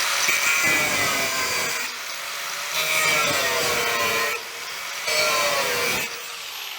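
Power tool cutting through the sheet-steel firewall of a 1951 Chevy truck cab, a harsh grinding with a motor pitch that wavers as the cut loads and eases. It comes in three louder stretches with short dips between them, then runs quieter near the end.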